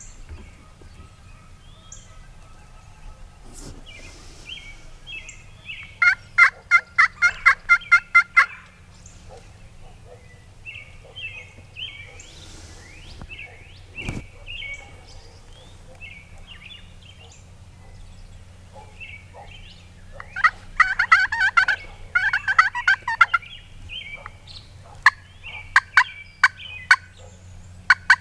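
Wild turkeys calling: a rapid run of about a dozen even notes some six seconds in, a denser rattling outburst about twenty seconds in, and a string of sharp single notes near the end. Small songbird chirps sound faintly between them.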